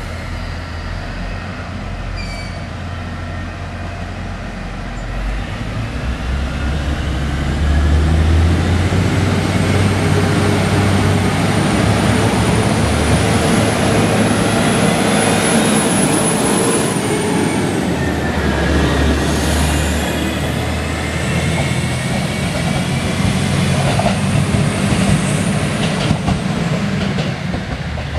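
KiYa E193 'East i-D' diesel inspection train running past and away, its diesel engines humming under the rumble and clatter of its wheels on the rails. The sound grows louder about seven seconds in, with a high-pitched wheel squeal in the middle of its passing.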